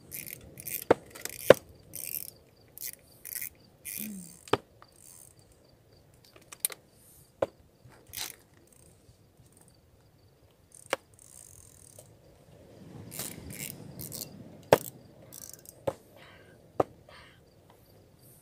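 Irregular sharp clicks and short rustles of fishing tackle being handled over a clear plastic tackle box: small lures and hooks knocking on the plastic and a plastic packet rustling. Insects chirp faintly behind.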